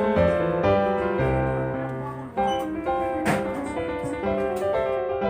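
Background piano music: a melody of notes played over chords.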